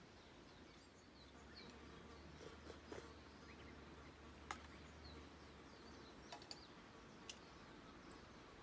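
Near silence: faint outdoor ambience with scattered faint chirps and a few small clicks, under a low hum that starts about a second in and fades out around six seconds.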